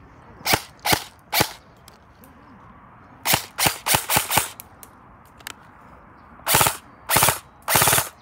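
Toy guns firing: three single shots in the first second and a half, a quick string of about six shots around three to four seconds in, then three short bursts of rapid fire near the end.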